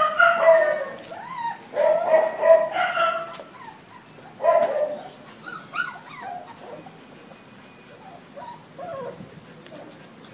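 Five-week-old Labrador puppies whining and yipping in high-pitched cries, loudest in the first few seconds and again about four and a half seconds in, then only faint short squeaks.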